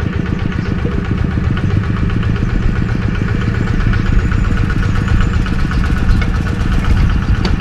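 The single-cylinder diesel engine of a two-wheel walking tractor running steadily, with an even, rapid chug.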